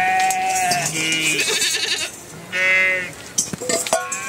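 Sheep bleating: three separate calls, each about half a second to a second long. Near the end come a few light clinks of metal cookware being handled.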